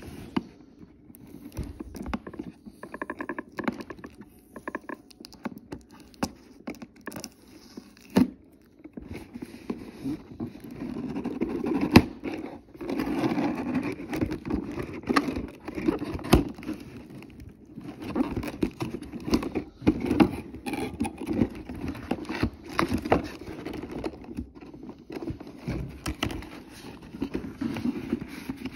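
Handling noise from unpacking a toy: irregular rustling and scraping of cardboard and plastic packaging with many sharp clicks and knocks, over cloth rubbing close to the microphone.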